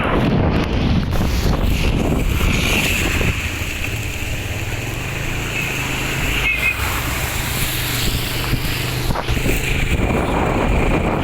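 Strong storm wind rushing and buffeting the microphone, with a steady low hum running through the middle of it.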